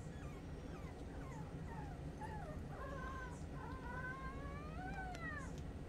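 A litter of young puppies squeaking and whimpering as they wrestle. Short falling yips come first; from about three seconds in, a longer whine rises in pitch into a small, thin howl.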